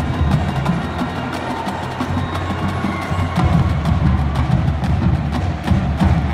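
Marching band playing: brass holding low notes under many crisp drum and percussion strikes.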